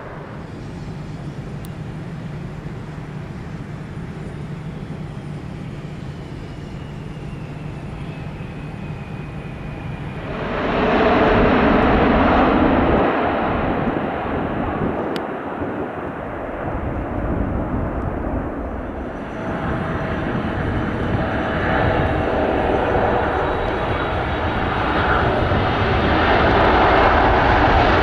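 Boeing 747 freighter jet engines on a landing: a steady low rumble, then about ten seconds in the engine noise rises suddenly to a loud, full jet roar. It eases off briefly and swells loud again for the last third.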